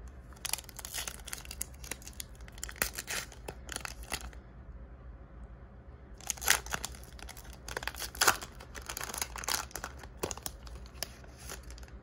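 Foil Donruss Optic trading-card pack being torn open by hand: crinkling and ripping in two spells with a short lull between, the sharpest tears about six and a half and eight seconds in.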